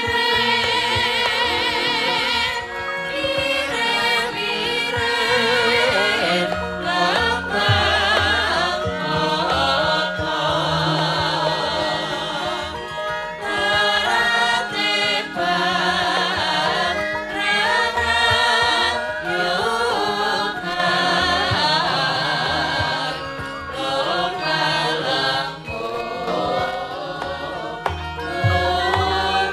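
Javanese gamelan music with singers in a slow, wavering sung line over sustained metallophone and gong tones. This is the live accompaniment of a wayang kulit shadow-puppet play.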